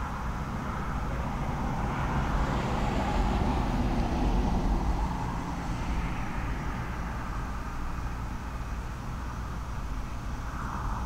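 Gusty wind from a hurricane's outer bands rushing through the trees. It swells to a peak a few seconds in, eases off, and rises again briefly near the end, over a steady low rumble.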